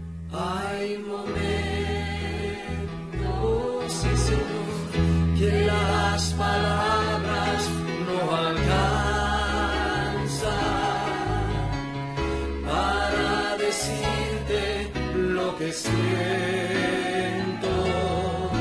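Spanish-language Christian worship song: a sung melody in phrases of a few seconds each, over instrumental accompaniment with sustained bass notes.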